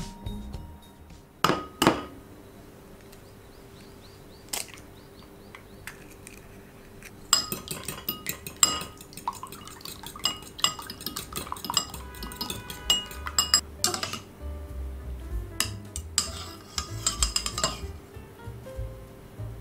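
Chopsticks beating eggs in a ceramic bowl: rapid, irregular clinking against the bowl's sides, with a few separate knocks of dishes before it starts.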